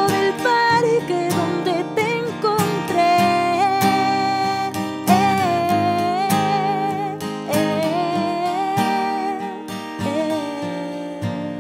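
A woman singing long, held notes with vibrato, without clear words, over a strummed acoustic guitar in a live acoustic performance. The music gets quieter toward the end.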